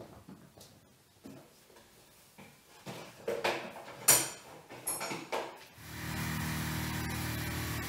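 Plastic tool case snapped open and a Metabo hammer drill lifted out, with a sharp click and some rattling, then about six seconds in the drill's electric motor starts and runs steadily.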